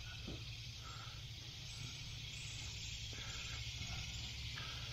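Faint, steady hiss over a low hum: background noise, with no distinct event.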